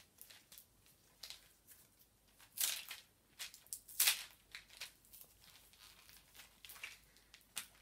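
Gift packaging being crinkled and torn by hand while someone struggles to get it open, in scattered short rustles with louder crackles about two and a half and four seconds in.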